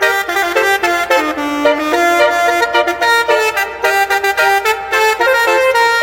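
Musical truck horn playing a fast tune of short, steady notes that change pitch several times a second.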